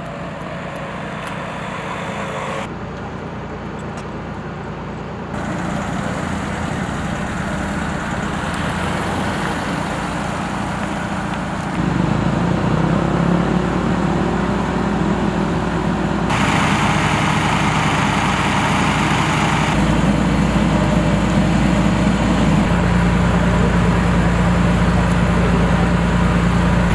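Steady engine and traffic noise of a city street, its character changing abruptly several times. A low steady engine hum runs through the last few seconds.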